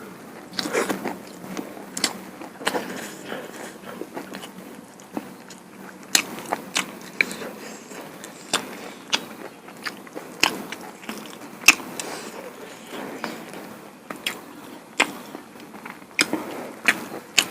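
Close-miked eating: a person chewing and biting into duck bhuna and rice-flour pitha, with irregular sharp wet clicks and smacks of the mouth every second or so.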